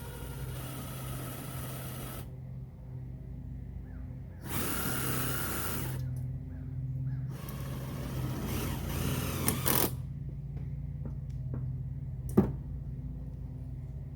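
Cordless drill driving screws into the metal chimney pipe, in two runs of a second or two each, followed near the end by one sharp knock, all over a steady low hum.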